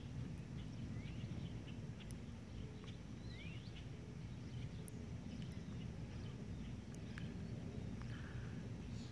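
Outdoor pond-side ambience: a steady low rumble, with faint scattered bird chirps and short rising whistles.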